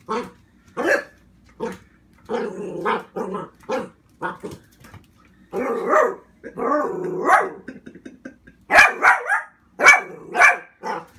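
Dachshund barking in a rapid string of short barks, with a few longer drawn-out stretches in the middle and the loudest barks near the end: excited, wary barking at a new toy it keeps approaching and backing away from.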